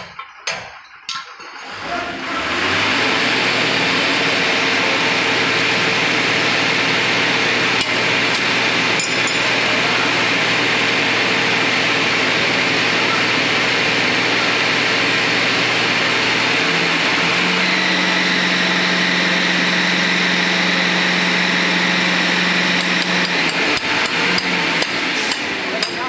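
A machine runs steadily and loudly, with a hum whose pitch changes about two-thirds of the way through. Sharp metal taps, a hammer on a steel bar set against a bus wheel-hub nut, sound at the start and come back near the end.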